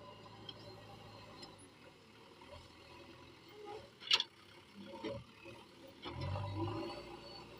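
Diesel earth-moving machinery running at a distance, a low steady hum, with one sharp clank about four seconds in and the engine note rising briefly near the end.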